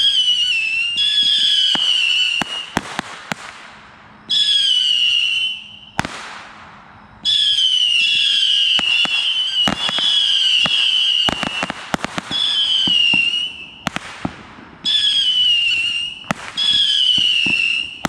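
Pyro Predator 325-shot Saturn missile battery firing volley after volley of whistling missiles. The many wavering high whistles overlap in runs of a second or two, one of them lasting about six seconds, with short lulls between. Sharp cracks of the missiles bursting run throughout.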